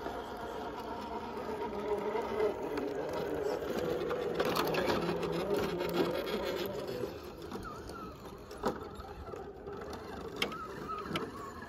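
Electric motors and geared drivetrains of RC rock crawlers whining as they crawl up rock, the pitch wavering with throttle. The whine fades after about seven seconds. A few sharp clicks follow, near the end.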